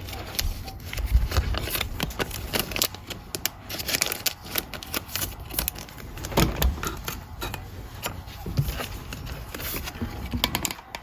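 Trading cards being handled and flipped through by hand, a run of irregular light clicks and rustles.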